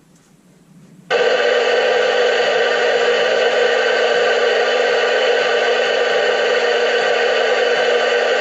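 CB radio switched on, its speaker giving a loud, steady hiss of static that starts suddenly about a second in, with no station coming through.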